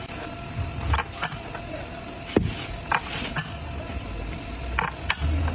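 Irregular sharp metal clicks and knocks as the steel rollers, cage and inner ring of a giant roller bearing are worked by hand into the outer ring; the loudest knock comes a little before halfway. A steady low hum runs underneath.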